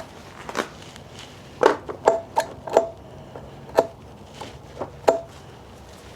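Light metal-on-metal clinks and knocks from metal hand tools being handled and set down, several with a short ring, loudest in a cluster between about one and a half and three seconds in and again near four and five seconds.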